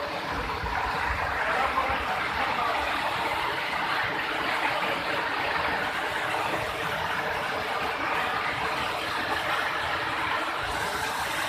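Steady rushing of water falling and running over rocks at a waterfall.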